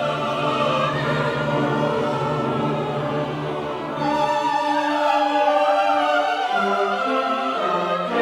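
A choir and orchestra performing classical choral music: held chords over a sustained low note, with the harmony changing about four seconds in.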